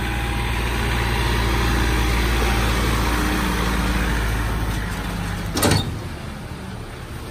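A vehicle engine running steadily, easing off about five seconds in, followed by a brief loud clatter.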